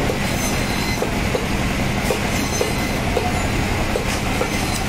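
Band saw (bone saw machine) running and cutting through tuna loin: a steady mechanical hum with a faint regular tick about twice a second.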